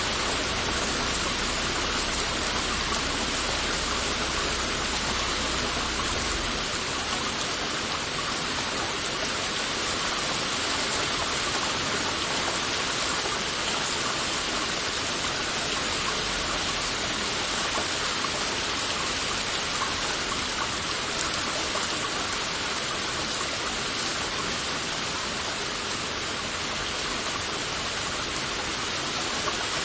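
Heavy rain falling steadily, an even hiss of many drops. A low rumble underneath stops about six seconds in.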